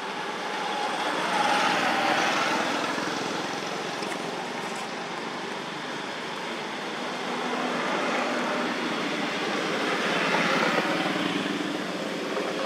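Road traffic passing: a vehicle swells up and fades away about two seconds in, and another goes by about ten seconds in.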